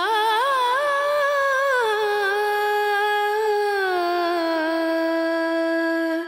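Background music: a single wordless voice humming a slow melody, gliding and wavering between notes, then holding one long note.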